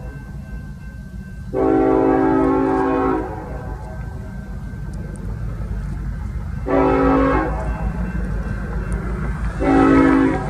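BNSF coal train's locomotive horn sounding three chord blasts: a long one, then two shorter ones a few seconds apart. A steady low rumble of the moving train runs underneath.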